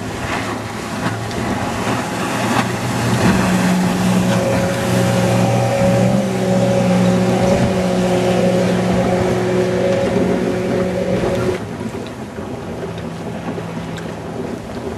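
Motorboat engine running steadily at high revs over rushing water and wind noise. The engine tone drops away abruptly about three-quarters of the way through.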